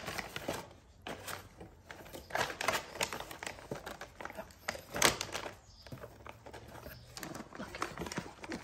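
Plastic treat packaging and a cardboard box crinkling and rustling in irregular bursts as a Yorkshire terrier rummages in the box and pulls out a bag of treats; the loudest crinkle comes about five seconds in.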